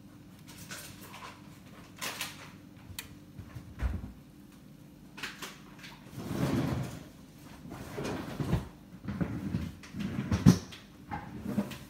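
Kitchen handling noises: irregular knocks, thuds and brief rustles, like cupboard doors and items being moved, growing busier in the second half with the sharpest knock near the end, over a faint steady low hum.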